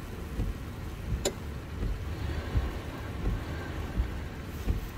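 Uneven low rumble of wind buffeting the microphone over the engine of a Jeep Grand Cherokee running on a muddy slope, with one sharp click about a second in.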